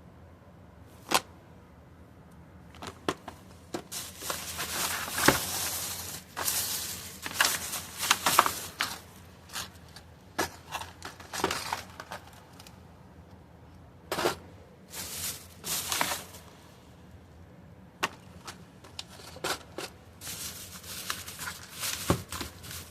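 Packaging and tools being handled: irregular crinkling and rustling with sharp clicks and taps, the busiest stretch about a third of the way in and another near the end.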